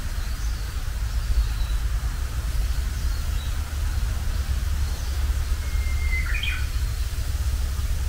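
A Japanese bush warbler sings one song phrase about six seconds in: a short held whistle followed at once by a quick run of notes. Faint high chirps come and go, over a steady low rumble.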